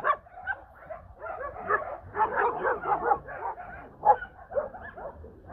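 Several dogs barking and yipping, the barks overlapping and thickest about two to three seconds in.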